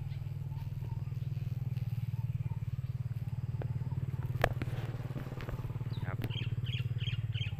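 A steady low droning hum, with one sharp click about four and a half seconds in. Near the end a bird chirps in a quick run of short high notes.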